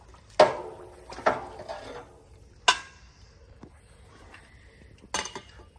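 A steel dock pipe knocking against the boat lift's metal frame: four sharp metallic clanks, the first the loudest, the first two ringing briefly.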